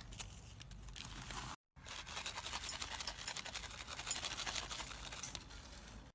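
Slime being squished and stretched by hand, making dense fine crackling and popping, cut by a brief silence about a second and a half in.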